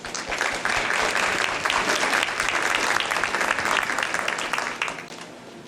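Audience applauding: a dense patter of many hands clapping that dies away about five seconds in.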